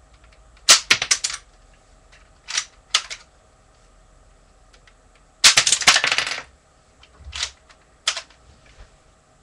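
Plastic Lego pieces of a brick-shooter gun clicking and rattling as it is handled: a quick cluster of clicks, two single clicks, then a longer rattle about halfway through and a few more clicks near the end.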